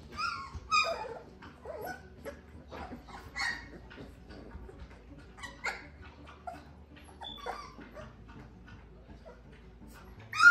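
A litter of young puppies playing and giving short, high-pitched yips and squeaky little barks every second or two, with one louder yelp near the end.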